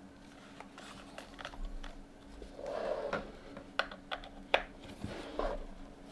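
Custom mechanical keyboard with lubed LOGA Chathai switches on an FR4 plate and SA-profile keycaps being typed on: irregular keystrokes, sparse at first and then busier, with the sharpest clack past the middle.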